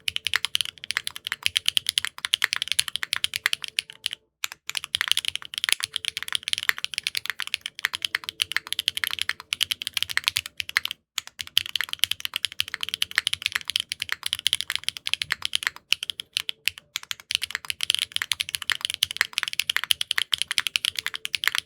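Fast, steady typing on a custom aluminium-plate mechanical keyboard with no foam and ABS keycaps, the keystrokes clacking in a quick run with two short breaks, about four and about eleven seconds in.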